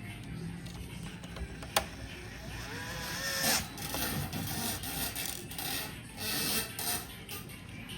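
Handling of PlayStation 5 console parts and screws during reassembly: scattered clicks and scraping of plastic and metal, with one sharp click about two seconds in.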